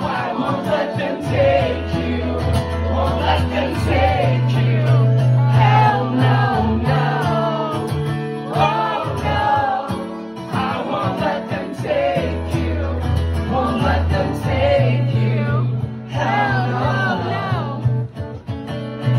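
Live solo acoustic rock: a man sings phrase after phrase while strumming an acoustic guitar.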